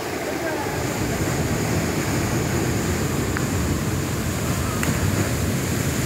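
Waterfall pouring over rocks: a steady rush of water that grows a little louder about a second in.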